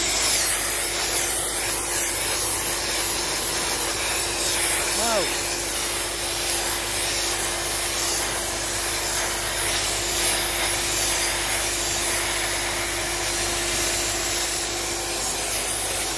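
Sandblasting with an SB28 suction blast pot, air-driven, firing aluminium silicate media at a metal part while the pot's built-in vacuum runs: a loud steady hiss of blasting and suction. A steady hum underneath stops about fifteen seconds in.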